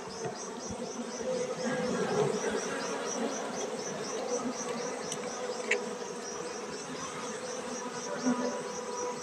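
Honeybees buzzing in a steady hum around an opened hive as the comb is lifted out. Over the hum, a high chirp pulses about four times a second.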